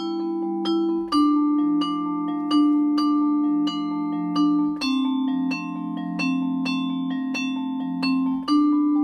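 Musser vibraphone played with four mallets: repeated strikes on the aluminium bars ring on over long-held low notes, the chord changing about a second in, again near five seconds and once more near the end.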